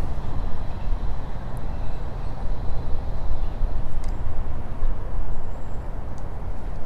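Steady low outdoor rumble that rises and falls quickly in level, with a few faint ticks.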